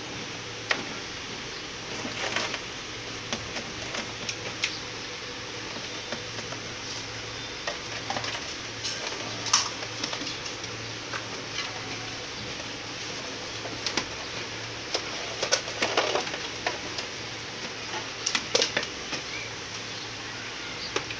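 Light handling noise from wiring up a DishTV set-top box: scattered small clicks and rustles of wire and plastic, over a steady hiss and faint low hum.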